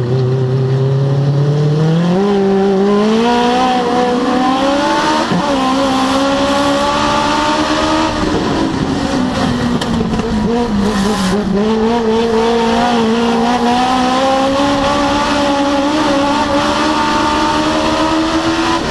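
Legend race car's Yamaha four-cylinder motorcycle engine, heard from inside the cockpit, revving up hard from about two seconds in. It eases off briefly around the middle, then climbs steadily again.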